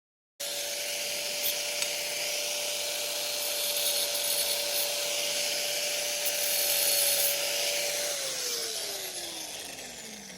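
Makita angle grinder cutting a ceramic wall tile, a steady motor whine over a harsh grinding hiss. About eight seconds in it is switched off and the whine falls in pitch as the disc spins down.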